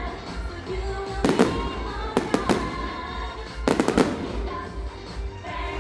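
Fireworks bursting in several bangs, in clusters about a second and a half, two and a half and four seconds in, over loud music from a show soundtrack.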